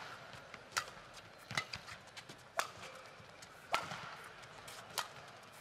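Badminton rally: rackets striking the shuttlecock back and forth, five sharp hits about a second apart.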